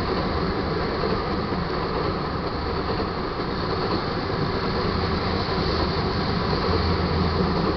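Freight train of crude-oil tank cars rolling past: a steady rumble and rattle of steel wheels on the rails.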